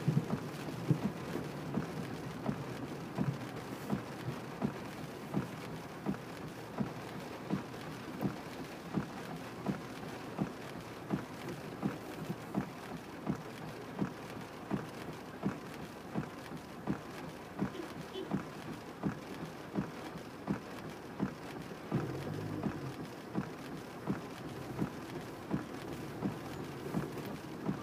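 Inside a moving car in the rain: a steady wash of rain and road noise over a low engine hum, with a regular tick or knock about three times every two seconds.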